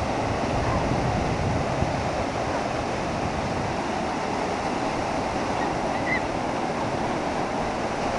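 Atlantic surf washing onto a rocky beach in a steady, continuous rush.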